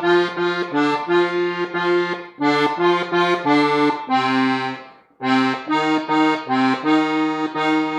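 Gabbanelli diatonic button accordion in F, played slowly on the treble buttons: a run of separate reedy notes that stops briefly about five seconds in, then starts again.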